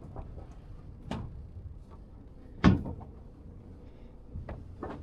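A few short knocks and clunks over a low rumble, the loudest about two and a half seconds in, with smaller ones near one second and near the end.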